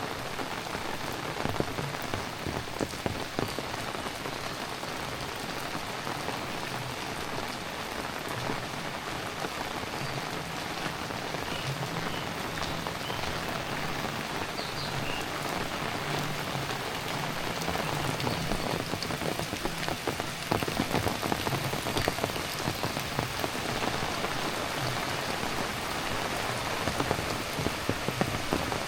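Heavy rain falling steadily, a dense hiss with many sharp close drop ticks scattered throughout.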